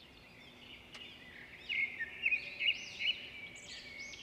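Small birds chirping and trilling repeatedly in the background, in quick runs of short rising-and-falling notes, over a faint steady hum.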